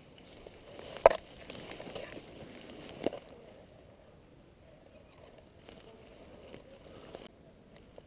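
Footsteps rustling and crunching through dry leaf litter, with two sharp clicks: a loud one about a second in and a softer one about three seconds in.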